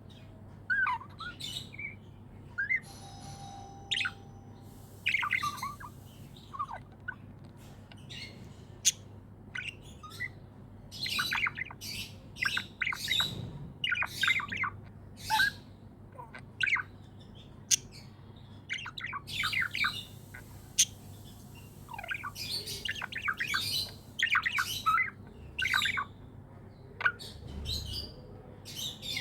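Budgerigars chirping in quick clusters of short, high calls with brief pauses between them, over a faint steady low hum.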